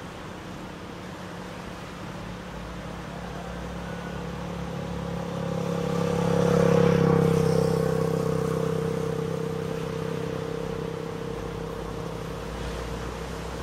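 A motor engine running steadily as it passes by, growing louder to its peak a little past halfway and then slowly fading.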